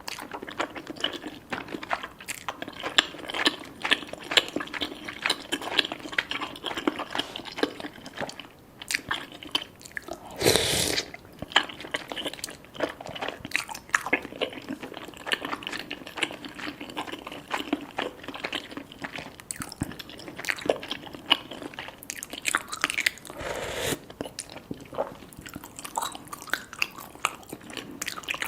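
Close-miked mouth sounds of eating cheesy rice cakes and fish balls: steady wet chewing with frequent smacks and clicks. Two longer, louder slurps come about ten seconds in and again later on.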